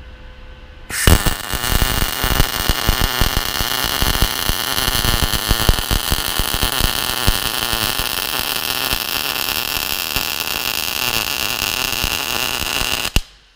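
MIG/MAG welding arc from a Sherman DigiMIG 200 Dual Puls welder laying a bead on steel: a steady crackling hiss that starts about a second in and cuts off sharply near the end when the arc is broken.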